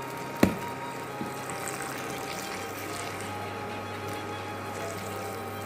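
Milk pouring in a steady thin stream from a carton into a pan of hot chicken curry. There is a single sharp click about half a second in.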